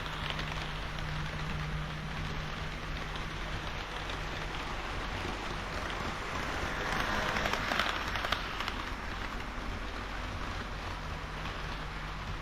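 HO-scale model train of KiHa 40 and KiHa 58 diesel railcars rolling along the layout's track: a steady rushing of wheels on rail with a low motor hum. It grows louder for a couple of seconds past the middle, with a few clicks.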